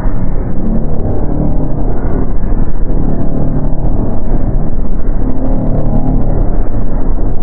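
Dark ambient horror drone: a loud, dense, low rumble with sustained deep tones, steady throughout.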